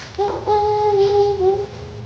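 Young infant cooing: one long, drawn-out vowel sound held at a fairly steady pitch for about a second and a half.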